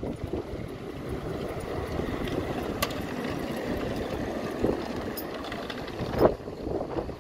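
Miniature steam locomotive running past on its track, a steady rushing noise with no clear chuff rhythm. A sharp click comes about three seconds in and a louder knock about six seconds in.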